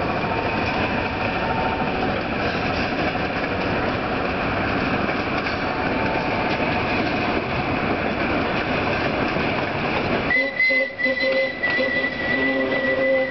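ER9P electric multiple unit running slowly along the track, with a steady noise from its running gear and scattered clicks. About ten seconds in the noise drops away suddenly, and a steady high tone with lower tones under it sets in and holds.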